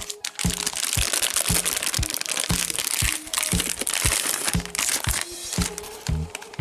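Meat grinder crunching through ice cream: a dense crackling noise that starts about half a second in and fades near the end, over background music with a steady beat.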